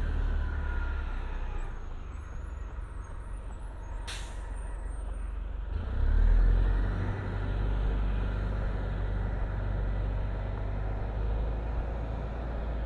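Transit bus pulling away, its engine running with a falling whine at first, and a short sharp air-brake hiss about four seconds in, over a steady low rumble.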